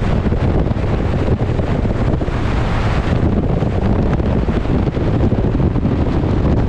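Wind buffeting the microphone over open sea from a moving ship, a loud, steady low rush, with the wash of the waves mixed in.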